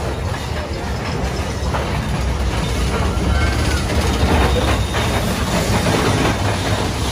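Big Thunder Mountain mine-train roller coaster cars running along the track, a steady low rumble with clattering clicks of wheels and cars, growing slowly louder.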